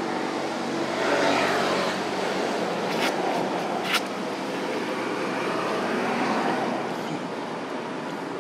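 A motor vehicle's engine running, a steady hum that swells louder about a second in and again later. Two short sharp clicks come about three and four seconds in.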